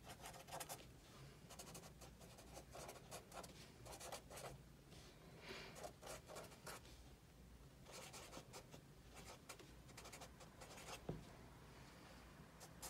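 Felt-tip marker writing on a paper notepad: faint scratching pen strokes in short runs with brief pauses, and one sharper tap about eleven seconds in.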